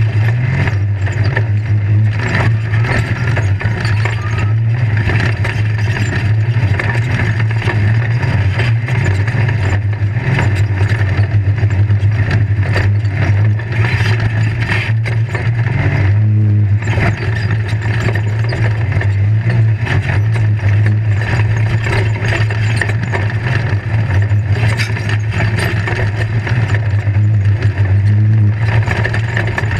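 Off-road race vehicle's engine running hard at speed, heard from inside the roll-caged cockpit, with a steady low drone and constant knocks and rattles from the chassis crossing rough dirt.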